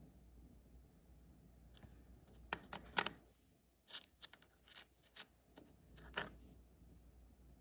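Light clicks and taps of small metal lock parts being handled. They come in a scattered run of about a dozen between two and six and a half seconds in, the loudest near three seconds and just after six.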